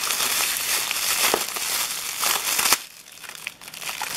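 Cellophane wrapping being crinkled and pulled off by hand, a dense crackling rustle. It stops for about a second around three seconds in, then starts again.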